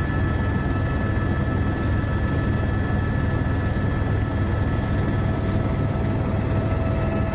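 Steady aircraft engine drone heard from on board: a constant low rumble with a fixed high whine, and a lower steady tone joining near the end.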